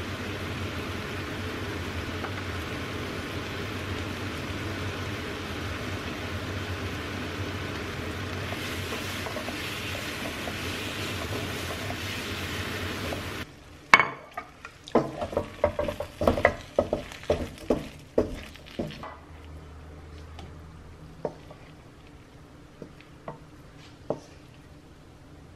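Stir-fried udon sizzling steadily in a nonstick wok. About halfway through the sizzle cuts off abruptly, and a wooden spatula knocks and scrapes against the pan in a quick run of knocks for a few seconds, then taps only now and then.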